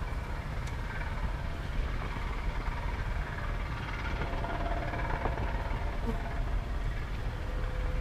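Honey bees buzzing around open hive boxes, with a fluctuating wind rumble on the microphone.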